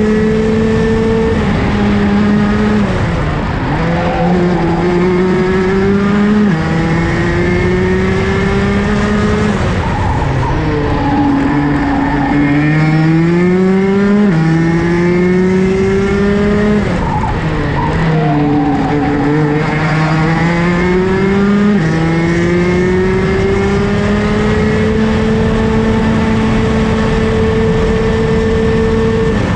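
Onboard sound of a Rotax DD2 kart's 125 cc single-cylinder two-stroke engine at racing speed: the engine note climbs steadily along the straights and falls away into the corners, with several sudden drops in pitch.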